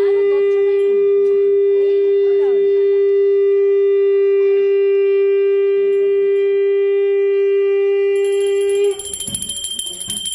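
Conch shell (shankha) blown in one long, steady, unbroken note that stops about nine seconds in. Near the end a small brass puja hand bell starts ringing.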